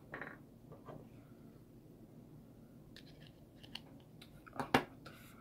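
Hands handling small plastic items, old cell phones and batteries: scattered light clicks and rustles, with the two sharpest clicks about four and a half seconds in.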